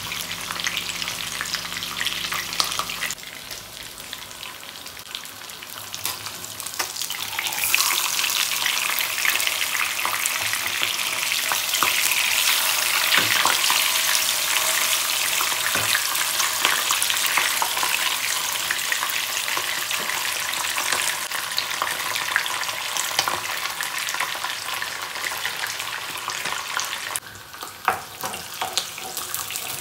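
Food frying in hot oil in a pan: a steady sizzle thick with small crackles, growing louder about eight seconds in. A low hum in the first three seconds stops abruptly.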